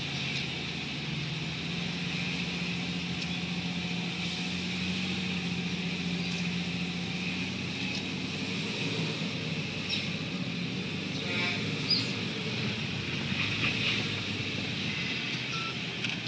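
Car driving on a winding hill road, heard from inside the cabin: a steady low engine hum with tyre and road noise, the hum fading somewhat about seven seconds in.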